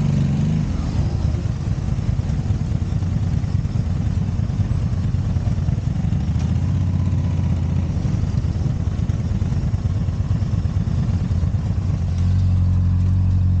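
Honda Magna V4 motorcycle engine running, uneven at first, then holding a steadier note from about halfway through and again near the end.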